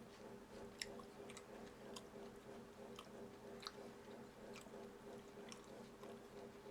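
A person chewing food quietly, with soft wet mouth clicks about once a second, over a steady low hum.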